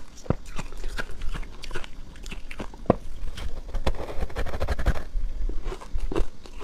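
Ice crunching as a thick frozen ice slab is bitten and chewed: a run of sharp cracks and crackles, densest about four to five seconds in.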